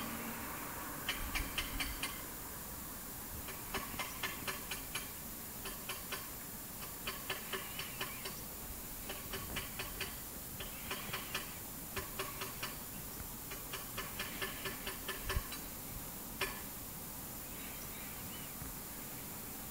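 Paintbrush dragged over the edges of horizontal wooden fence slats, making short runs of quick ticks that come about once a second, one run per stroke. The strokes stop a few seconds before the end.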